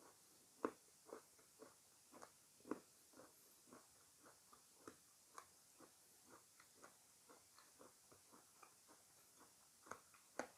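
Quiet close-up chewing of fresh fruit: a steady run of short, separate crunchy clicks, about two a second, a little louder about half a second in and near the three-second mark.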